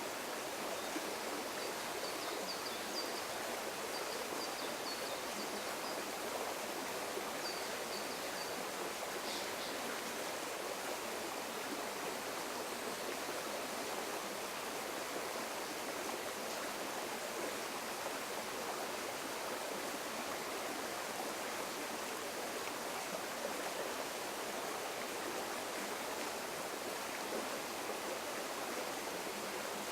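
River water flowing over rocks, a steady, unbroken rushing. A few faint high chirps sound over it in the first ten seconds.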